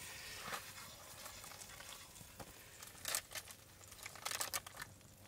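A few faint scrapes and clicks of a frying pan and spatula as fried eggs are served onto bread, the loudest about three seconds in, over a low steady hiss.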